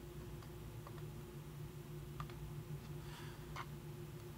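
A few faint clicks and taps of a plastic stylus on a Huion H420 graphics tablet, one with a brief scratch about three seconds in, over a steady low hum.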